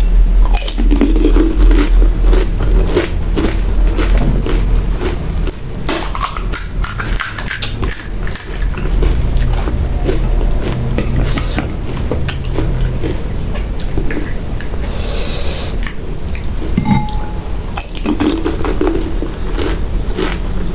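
Close-miked crunching and chewing of pani puri: crisp hollow puri shells bitten and chewed, with many short crunches.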